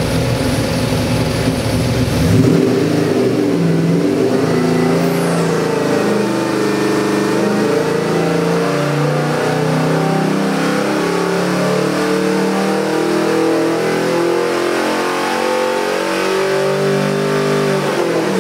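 Ford 427 Windsor stroker V8 running on an engine dynamometer. It idles at first, then about two seconds in the throttle opens and it pulls steadily up under full load from idle to about 5,700 rpm in a sweep test.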